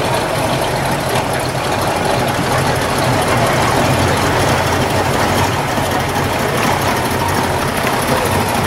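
Engines of classic cars creeping past at parade pace, a 1969 Ford Mustang and then a Chevrolet Blazer, running steadily near idle.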